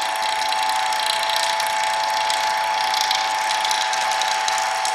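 Hobart A200 mixer running with its gearbox open: the electric motor and meshing gear train give a steady whine with a whirring clatter, as grease is packed into the turning gears.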